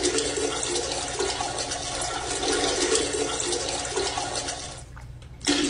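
Toilet flushing: a loud, steady rush of water that cuts off suddenly near the end, then a second rush starts just after.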